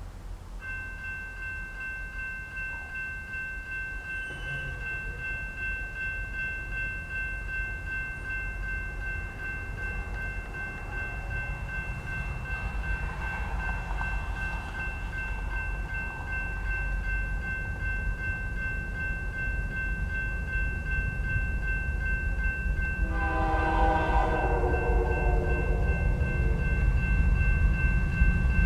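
Railroad crossing bell ringing steadily from about half a second in, warning of an approaching train, while the low rumble of an oncoming freight train grows steadily louder. Near the end the lead locomotive, a GE Dash 9-44CW, sounds its multi-note horn once for about two seconds.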